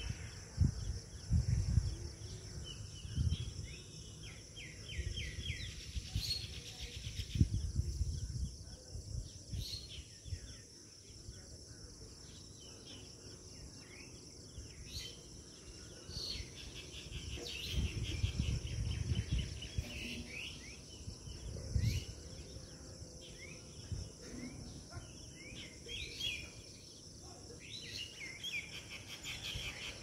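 Outdoor dawn chorus: several birds calling in short repeated phrases over a steady high-pitched insect drone, with occasional low rumbles.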